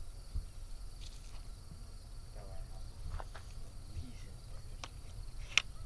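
Distant Canada geese calling in scattered, short honks from flocks overhead; the loudest honk comes near the end. Underneath runs a steady high insect chirring and a low rumble.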